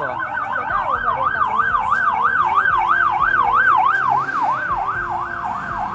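Ambulance siren wailing, sweeping up and down in pitch about twice a second and quickening near the end.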